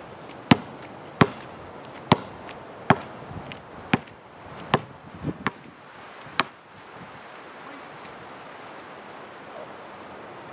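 A series of sharp, loud bangs, about one a second, with two in quick succession near the middle, stopping about six and a half seconds in. These are noises made on purpose as distractions while a dog holds a place command, for noise desensitization.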